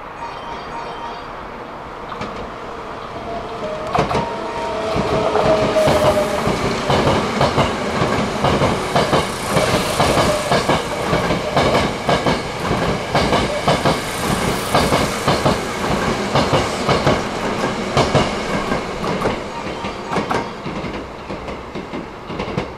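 Electric commuter train passing, its wheels clicking rapidly over rail joints. The noise builds over the first few seconds, is loudest through the middle, and fades near the end. A brief tone sounds about five seconds in.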